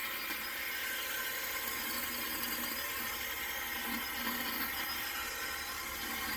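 Craftsman 10-inch 20-volt battery chainsaw running steadily at speed, its electric motor and chain giving an even whir as it cuts into the trunk of a small felled tree.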